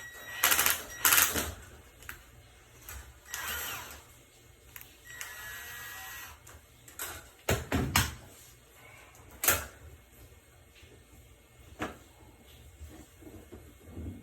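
Scattered clanks, clicks and scrapes of hand work on a Whirlpool front-load washer during a door bellow replacement: parts and tools knocking against the machine. Two loud clanks come about a second in, more around the middle, and a scraping stretch comes in between.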